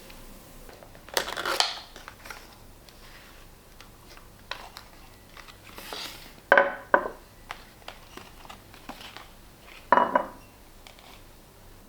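Dishes and utensils clinking and clattering in three short bursts: about a second in, midway through, and near the end.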